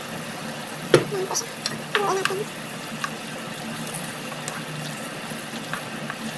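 Vegetables simmering in sauce in a nonstick frying pan, a steady bubbling hiss. A sharp knock comes about a second in, and light clicks and scrapes follow as a wooden spatula stirs the pan.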